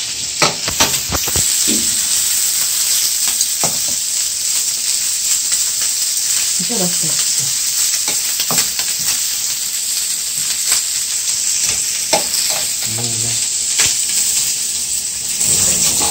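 Pork neck slices and button mushrooms sizzling steadily on a hot tabletop griddle, with a few short clicks over the hiss.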